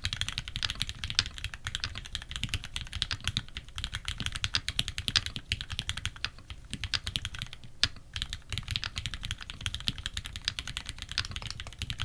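Custom Tx65 mechanical keyboard being typed on quickly: lubed Retooled Black linear switches on a brass plate under GMK keycaps, a dense run of keystrokes that thins out briefly about two-thirds of the way through, with one sharper strike there.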